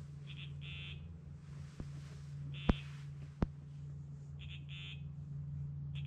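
Electronic carp bite alarm giving short high-pitched beeps at irregular intervals, singly and in pairs, about six in all: a fish picking at the bait and moving the line. A steady low hum runs underneath, with a few faint clicks.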